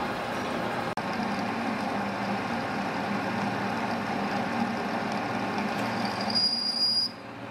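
Metal lathe running while a cutting tool turns down a metal shaft held between chuck and tailstock centre: a steady machine hum with cutting noise. Near the end a high, steady squeal sounds for under a second, then cuts off.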